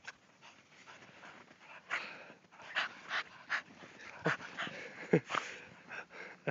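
Small dogs panting close by in quick, irregular breaths.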